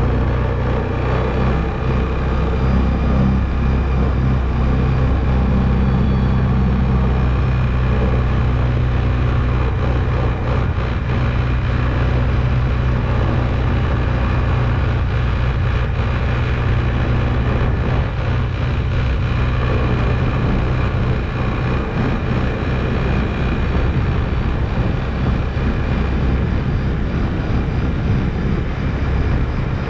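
ATV engine running steadily while driving, a low, even drone whose pitch shifts slightly a couple of times.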